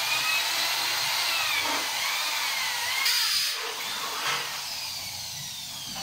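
Electric drill boring into a metal sliding-door frame, a high whine that wavers in pitch and eases off about three seconds in.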